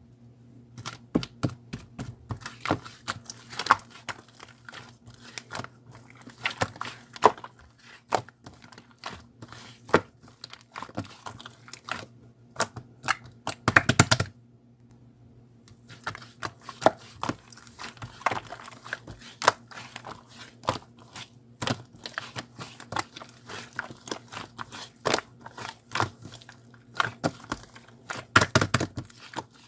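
Red slime being squished, stretched and pressed by hand, making a dense run of sticky clicks, pops and crackles. There is a brief pause about halfway through, with a thicker burst of crackling just before it and again near the end.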